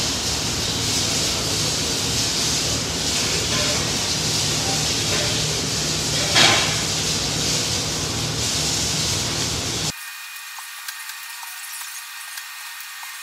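Steady rushing hiss of room ventilation, with one brief louder sound about six seconds in. About ten seconds in, it cuts suddenly to a quieter, thinner hiss.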